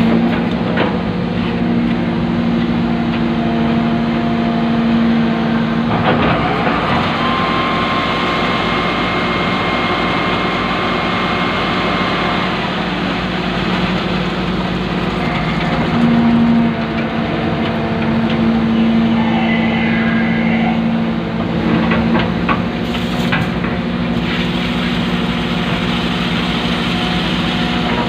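Excavator's diesel engine running under load, heard from inside the operator's cab. Its note shifts as the hydraulic boom and bucket work, and a steady high whine comes in for a few seconds in the middle.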